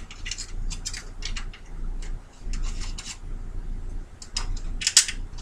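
Thumb screws being turned by hand into the metal drive cage of a Fractal Design Arc Midi R2 PC case: clusters of light metallic clicks and scrapes, with a sharper click about five seconds in.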